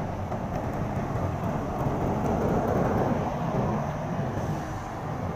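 Steady outdoor background rumble, swelling a little about halfway through.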